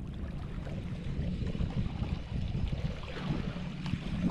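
Seaside ambience: wind on the microphone and small waves lapping and splashing against the rocks of a breakwater, a steady low rush with little irregular splashes.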